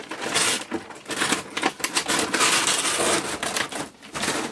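Plastic packaging crinkling and rustling close to the microphone as items are pulled out of a box, a dense crackle that runs for about three seconds and then thins out near the end.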